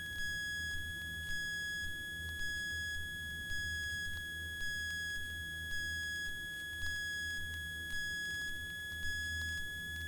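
A single steady high electronic tone with faint overtones, held unchanged over a low hum.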